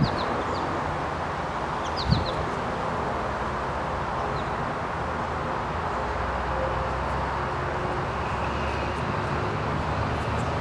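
Steady outdoor background noise with a few short bird chirps near the start and again about two seconds in, each time with a low thump.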